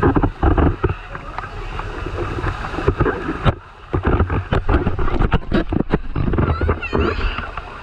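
Water rushing down a rocky cascade and churning around the bathers, with splashes striking the action camera. About three and a half seconds in the sound goes muffled for half a second, then water crackles and splashes hard against the microphone.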